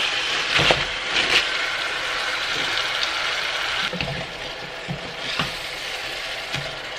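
Frozen homemade broth going into a hot Dutch oven of vegetables, hissing and sizzling steadily as it starts to melt. A wooden spoon knocks and scrapes in the pot, most sharply about a second in.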